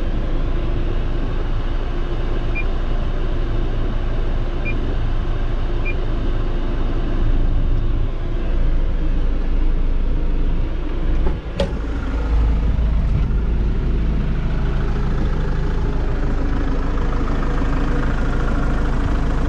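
Kubota L6060 tractor's four-cylinder diesel engine idling steadily. A single sharp click about halfway through, after which the engine sounds heavier and fuller.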